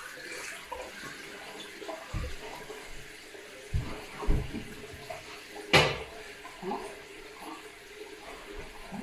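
Water running faintly in a small bathroom, with a few dull knocks and one sharp click about six seconds in.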